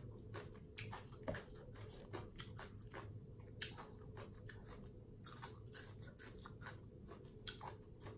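Faint, close chewing of a mouthful of Thai green papaya salad: many short, soft wet clicks from the mouth at an uneven pace.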